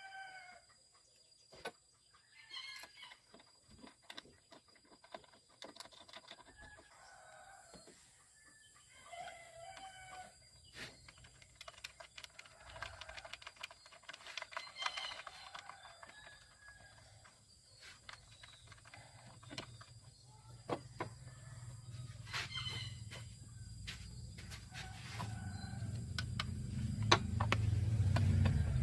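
Chickens clucking and a rooster crowing now and then, with scattered sharp clicks. A low rumble builds over the last several seconds and is the loudest thing near the end.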